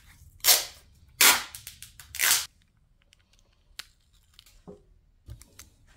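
Handling noise from fitting a CPU cooler's mounting brackets to a motherboard: four short, loud rasping bursts in the first two and a half seconds, then a few faint clicks.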